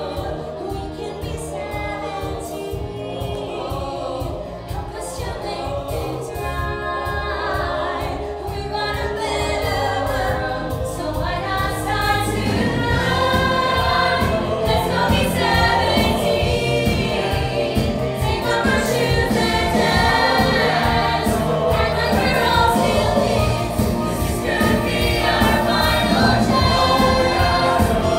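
A large stage-musical ensemble singing together with instrumental accompaniment. About halfway through the music grows fuller and louder.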